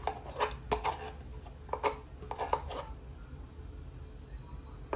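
Metal spoon clinking and scraping against a saucepan while curry paste is stirred into boiling water. There is a quick run of about eight clinks, a pause, then one more clink near the end.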